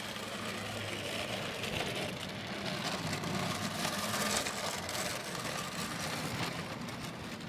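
A steady low motor hum under outdoor background noise.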